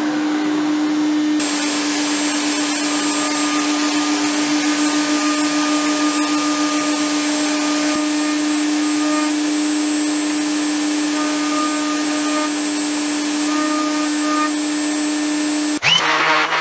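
Steady, unbroken whine of a running power-tool motor with shop dust extraction. It cuts off abruptly near the end and gives way to a random orbit sander running on the workpiece.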